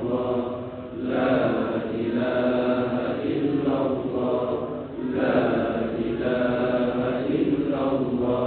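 Islamic devotional chanting in a mosque, sung in long melodic phrases of about four seconds with short pauses for breath between them.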